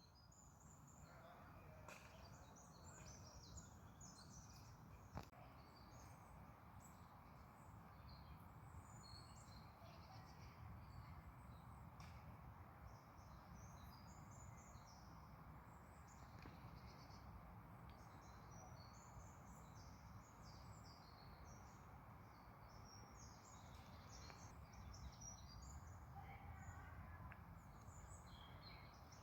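Faint outdoor ambience of small birds chirping: many short, high chirps scattered throughout over a steady low rumble.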